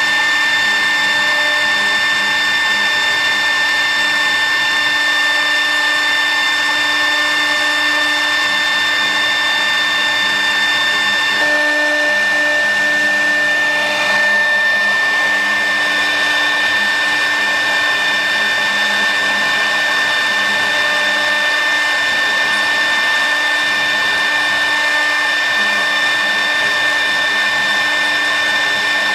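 Mini cylinder CNC router running as it engraves wood: a steady high whine from the spindle motor over cutting noise, the tone shifting slightly about eleven seconds in.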